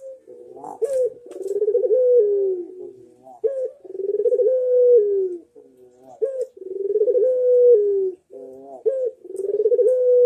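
A caged puter, a pale collared dove, cooing over and over. There are about four phrases a few seconds apart, each a short rising note followed by a long rolling coo that drops in pitch at the end.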